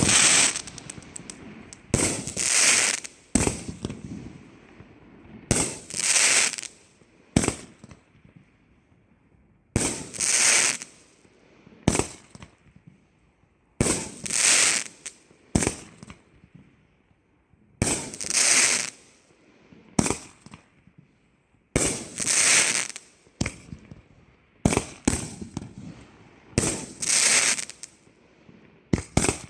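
Winda 'Sprinkle Donuts' consumer firework going off in repeated volleys about every four seconds: each a sharp report followed by a crackling burst that dies within about a second, with short single pops between the volleys.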